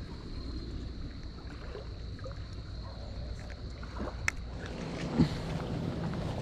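Steady low noise of water lapping, with a sharp click about four seconds in and a short knock about a second later.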